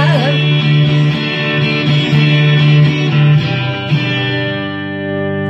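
Guitar strummed as the song's closing chords, with a final chord struck about four seconds in and left to ring.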